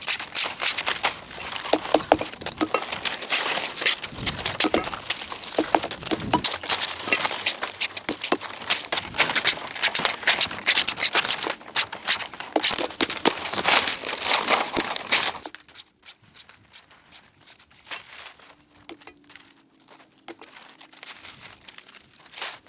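Stiff green fan-palm fronds being handled and split: a dense crackling rustle of the leaves with many sharp clicks, dropping suddenly about two-thirds of the way through to quieter, scattered rustles and clicks.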